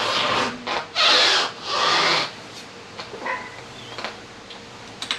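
Harley-Davidson Iron 1200's electric starter cranking the engine in three short raspy bursts in the first couple of seconds, on a battery that went flat and has been on a charger.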